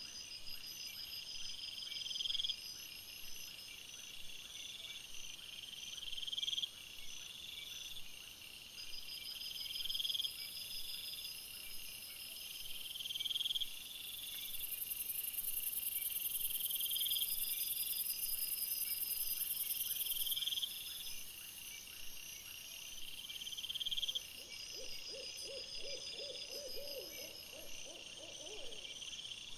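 Night-time animal calls in woodland: a short, high, rising call repeating about once a second throughout, joined by a steady high hiss through the middle and a quick run of lower pulsing calls near the end.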